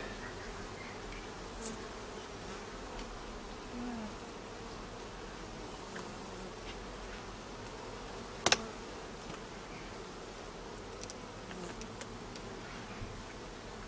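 Honeybees buzzing steadily around an opened hive. There are a few faint clicks and one sharp click about halfway through.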